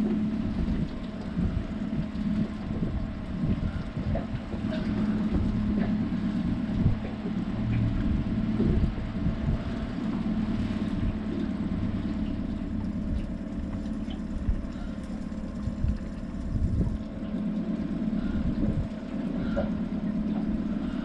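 Outboard motor running steadily at trolling speed, an even hum, with low wind rumble on the microphone.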